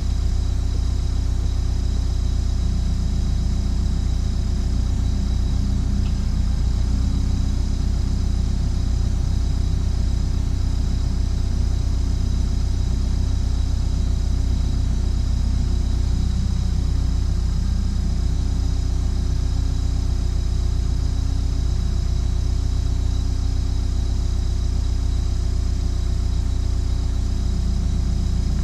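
Cat 314E excavator's diesel engine running steadily, with a thin steady high tone above it.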